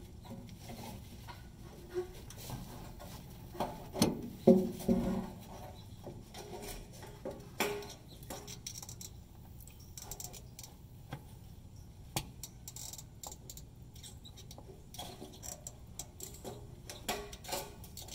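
Light metallic clinks and knocks as the fuel pump and sending unit assembly, with its metal fuel lines and float arm, is worked out through the fuel tank opening. The strongest knocks come about four to five seconds in.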